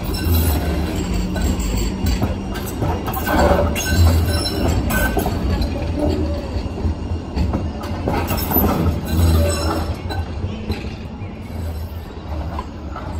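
Class 399 Citylink tram-train running past on street-running rails and pulling away: a steady rumble of wheels on track, with a few louder clattering moments about a third of the way in and again past the middle.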